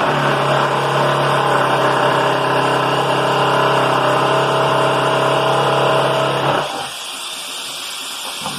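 Electric drill motor running at a steady speed for about six and a half seconds, then stopping; it starts up again right at the end.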